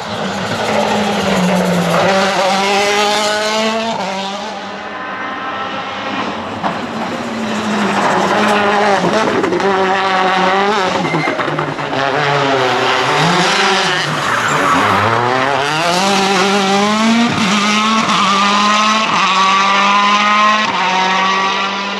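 Citroën DS3 WRC rally car's 1.6-litre turbocharged four-cylinder engine revving hard, its pitch climbing in repeated rising sweeps through the gears and dropping back when the driver lifts, over several passes.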